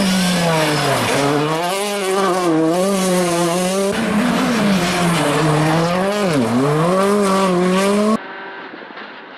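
Rally car engine at high revs, its pitch rising and falling as the throttle is worked, with brief deep dips about a second, four seconds and six and a half seconds in. Near the end the sound cuts abruptly to a quieter, duller engine.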